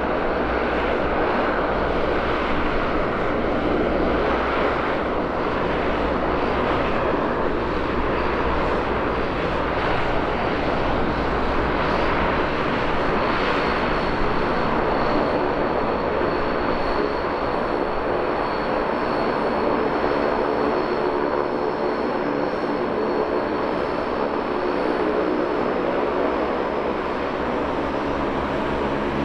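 Antonov An-12B's four Ivchenko AI-20 turboprops running steadily at taxi power as the aircraft rolls slowly on the ground. There is a dense propeller drone with a high turbine whine that becomes more noticeable about halfway through.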